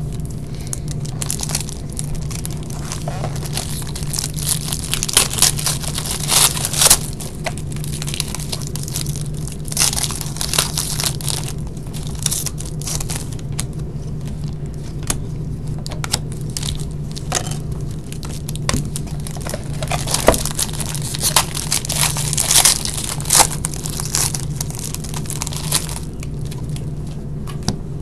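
Packaging on hockey card boxes and packs being torn open and crinkled, in irregular crackling bursts over a steady low hum.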